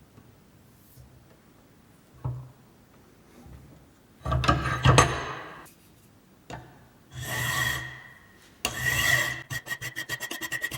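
Hand filing on a workpiece: a couple of light knocks, then three or four slow, long rasping strokes, and from near the end quick short strokes at a steady pace.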